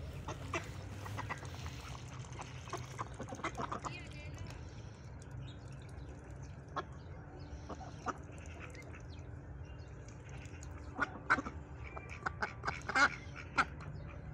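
White domestic ducks quacking on a pond: short calls come scattered through the first few seconds, then a louder cluster of quacks comes near the end.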